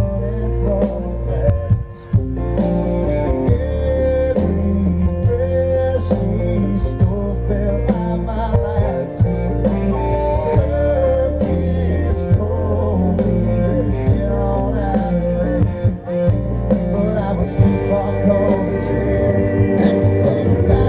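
Live country band playing: electric guitar, bass and drums behind a male lead singer, heard as a crowd recording. The band drops out briefly about two seconds in and again near the sixteen-second mark.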